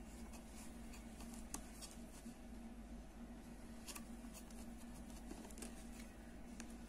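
Faint handling sounds of crocheting: a crochet hook pulling cord through the holes of a wooden bag side panel, with a few soft clicks, over a steady low hum.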